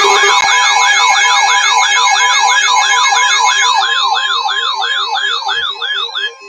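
Electronic siren yelping, its pitch sweeping rapidly up and down about three times a second, layered with steady electronic tones. It fades and stops about six seconds in.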